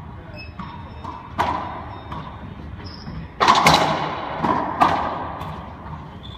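Racquetball rally: the ball is struck by racquets and rebounds off the walls and floor of an enclosed court. Each hit is a sharp smack with a ringing echo. The first comes about a second and a half in, the loudest cluster of hits comes about three and a half seconds in, and a couple more follow.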